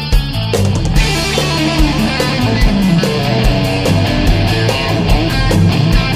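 Rock music with electric guitar, played as a continuous backing track.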